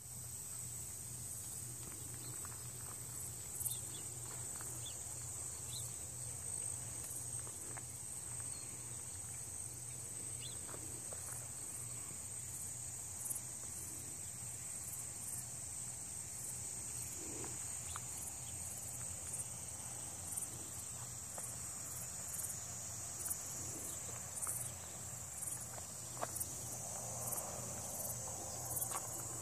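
Steady high-pitched chorus of insects such as crickets, with short higher chirps pulsing over it, and a low steady hum beneath.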